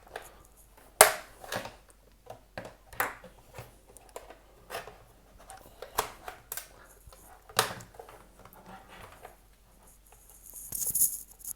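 Plastic housing of a wireless access point being pried apart with a screwdriver: irregular sharp clicks and snaps as the pressure-fit clips and plastic give, with a brief high scraping rustle near the end.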